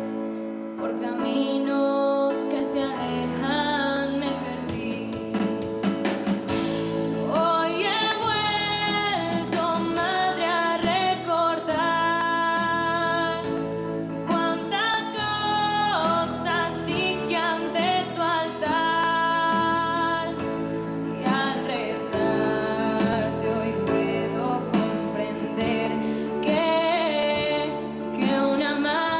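A devotional Spanish song to the Virgin Mary, sung solo over instrumental accompaniment of held low chords that change every couple of seconds.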